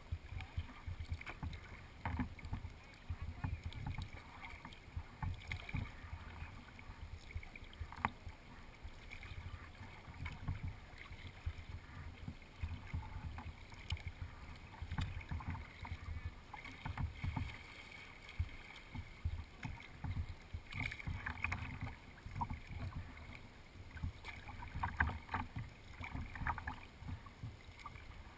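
Water splashing and lapping along a kayak's hull as it is paddled, with uneven wind rumble on a microphone mounted on the bow deck.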